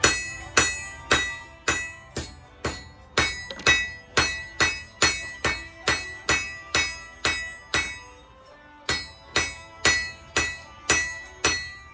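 Hand hammer striking hot steel rebar on an anvil while forging a knife blade, about two ringing blows a second in a steady rhythm. The hammering pauses briefly near the end, then resumes.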